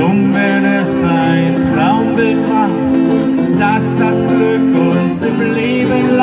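Live acoustic music played through a small PA: two acoustic guitars strumming chords, with a wavering melody line over them.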